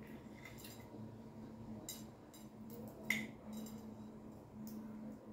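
Metal fork and knife clinking and scraping against a glass plate as meat is cut, a few light clinks with the sharpest, briefly ringing one about three seconds in.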